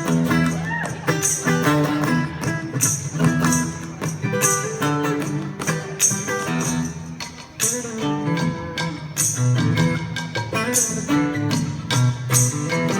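A live band playing a song: guitar and bass over a steady beat with bright, regular percussion hits.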